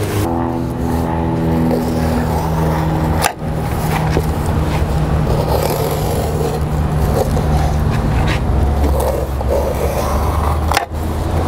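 Self-adhered roofing underlayment scraping and rustling as it is laid and smoothed by hand, over a steady low motor hum. Two sharp clicks, about three seconds in and near the end.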